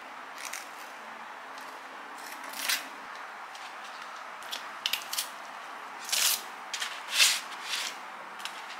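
A table knife scraping cream cheese across a bagel half, then a plastic smoked-salmon pack being handled, crinkling in short sharp bursts, the loudest past the middle, over a steady hiss.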